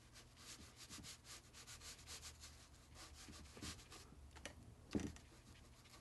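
Flat watercolour brush scrubbing back and forth on a ceramic plate palette, mixing paint in quick faint scratchy strokes, with two soft knocks in the second half.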